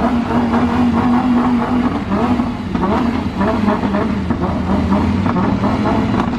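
Supercar engine running at a steady, held pitch, which wavers a little from about two seconds in.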